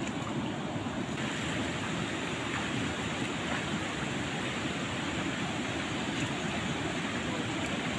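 Steady rushing of a fast-flowing river's current.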